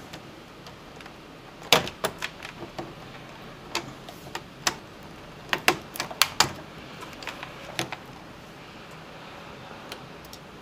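Scattered sharp clicks and clacks of a Dell Inspiron 1525 laptop's screen assembly being fitted back onto its base, metal hinges and plastic casing knocking as they are lined up and seated, with a quick run of several clicks around the middle.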